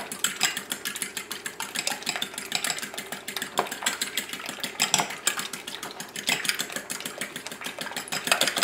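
Metal fork beating eggs in a small glass bowl, rapidly and steadily clicking against the glass.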